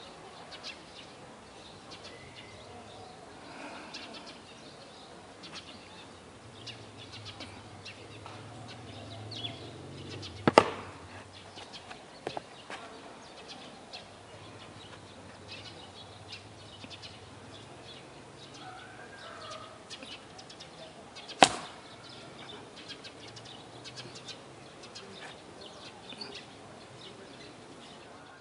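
Swish of the Chen style tai chi practitioner's loose clothing during the form, broken twice by a single sharp crack from an explosive strike, about ten seconds in and again, louder, about twenty-one seconds in.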